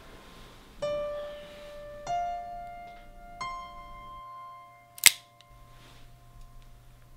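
Three slow, sustained piano notes of a film score, each left to ring, then a single sharp click about five seconds in, the loudest sound, followed by a faint low hum.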